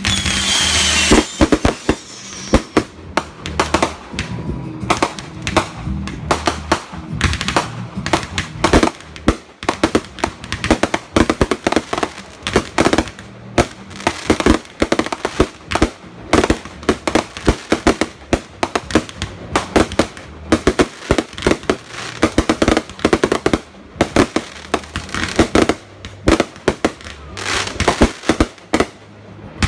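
Fireworks finale: a board of shells firing together in a fast barrage, the bangs of launches and bursts following each other many times a second with no break.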